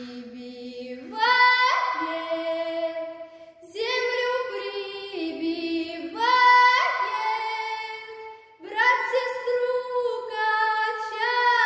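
A young girl singing a Russian folk song solo in the open-voiced folk vocal style. She holds long steady notes joined by leaps up in pitch, in phrases with short breaths about three and a half and eight and a half seconds in.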